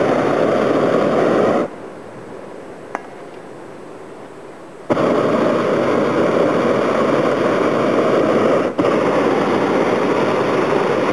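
A hot air balloon's propane burner firing, a loud steady blast that cuts off just under two seconds in. After about three seconds off it fires again, with a momentary break about nine seconds in.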